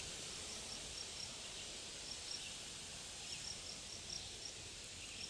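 Outdoor field ambience: a steady hiss with an insect chirping in runs of short, high, thin pulses, about three a second, that stop and start again.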